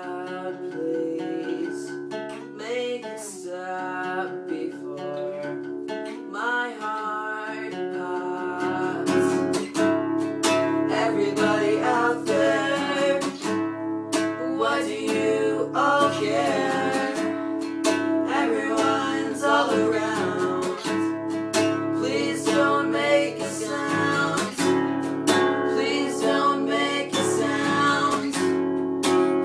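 Acoustic guitar strumming chords under a sung melody, with no drums; the accompaniment gets fuller and deeper about eight seconds in.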